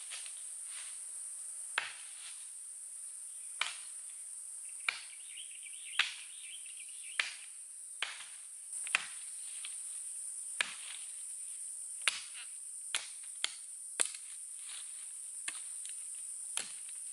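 Steady high-pitched drone of a forest insect chorus, crickets or similar. Irregular sharp knocks and clicks about once a second sound over it.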